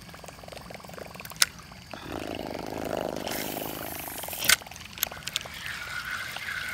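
Spinning reel being cranked: a fine, fast whirring for about two seconds, ending in a sharp click. There are a couple of lighter clicks around it.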